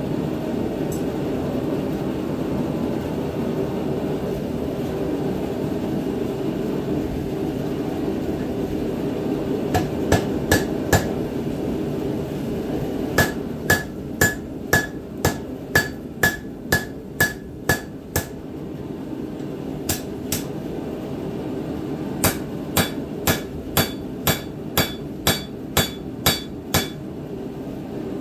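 Blacksmith's hand hammer striking a red-hot steel tomahawk head on an anvil, with a ringing note on each blow. The blows start about a third of the way in and come in runs of about two a second, with short pauses between. A steady low rushing noise runs underneath.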